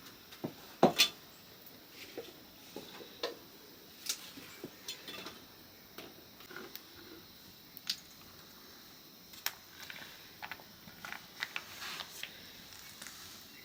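Kitchen utensils and dishes being handled, with scattered light clinks and knocks at irregular intervals. The two loudest knocks come close together about a second in.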